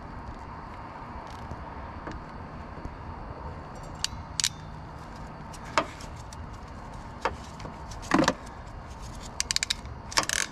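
Sharp metal clicks and clacks from a hand crimping tool being worked on a butt connector on 12-gauge wire: single clicks from about four seconds in, the loudest clack a little after eight seconds, and a quick run of clicks near the end.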